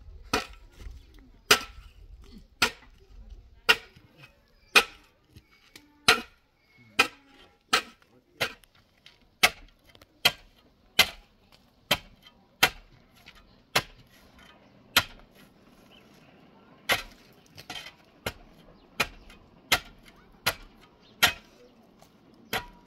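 A hand tool strikes again and again in sharp chopping blows, about one a second, with a short pause about two-thirds of the way through. It is the sound of digging out material that has been damaged by soaking water.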